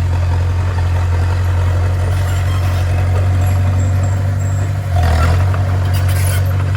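Bulldozer's diesel engine running steadily with a deep hum, briefly louder about five seconds in.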